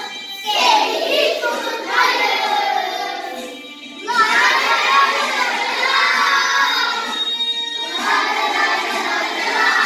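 A class of young children singing a march together in unison, loud and a little shouted, with brief breaks between phrases.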